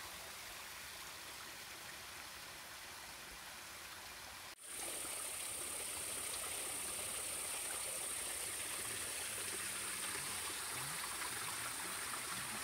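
Small creek and waterfall running steadily over rocks. The sound cuts out for an instant about four and a half seconds in, then comes back louder.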